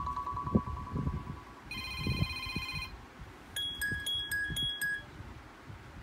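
Sony Xperia V ringtone previews played one after another through the phone's speaker, each cut short as the next is tapped: a pulsing tone that fades out, a bright chime about two seconds in, then three short beeps. Low thuds from the phone being handled run underneath.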